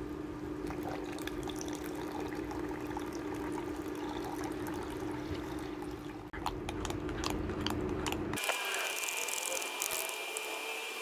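Milk poured into a plastic measuring jug of flour, then a metal utensil clicking and scraping against the jug as the mixture is stirred, over the steady hum of an induction cooker. About two thirds of the way through, the hum cuts out and is replaced by a hiss with a steady high tone.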